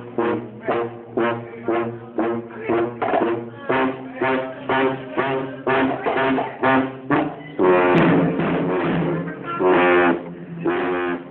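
Brass band music: short, punchy brass notes about two a second, giving way to longer held chords from about eight seconds in.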